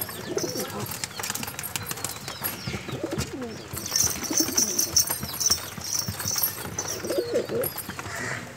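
Domestic pigeons cooing several times, with close knocks and rustling and a run of high, quick chirps from about four to six and a half seconds in.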